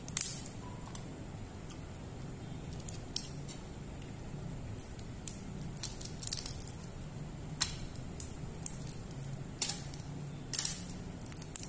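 Crab shell being cracked and picked apart by hand with a small utensil: scattered sharp little clicks and crackles at irregular intervals over a faint steady hum.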